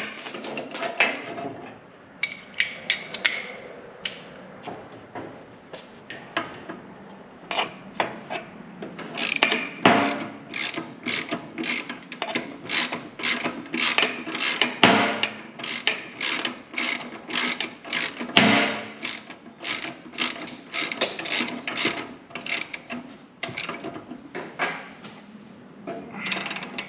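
Hand socket ratchet working a nut or bolt: its pawl clicks, scattered at first, then in a long even run of about two to three clicks a second.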